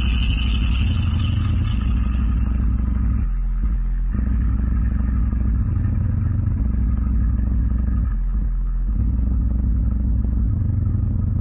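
Deep bass test tones played through a DJ sound system for a sound check: a loud, steady low rumble that shifts pitch every few seconds.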